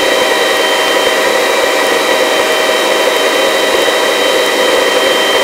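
Helicopter turbine engine and rotor running steadily in a low hover: a constant noise with a steady whine at several fixed pitches.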